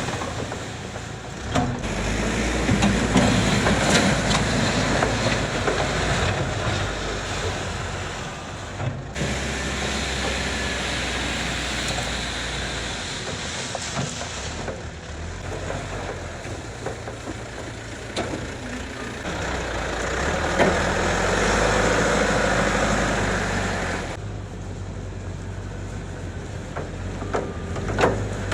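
Backhoe loader's diesel engine running under load while spreading gravel, its revs rising and falling, with a steady scraping hiss. The sound changes abruptly a few times.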